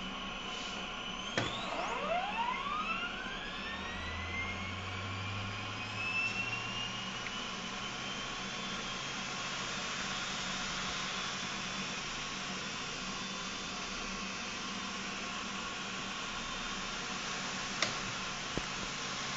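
Whine of an open hard drive's spindle motor and bare platters: a steady high whine breaks off with a click about a second and a half in, then climbs steeply in pitch and levels off into a steady high whine over several seconds as the platters spin up. A single click comes near the end.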